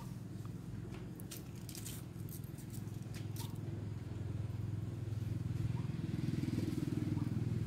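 An engine running with a low, steady drone that grows louder about halfway through, with light crackling in the first half.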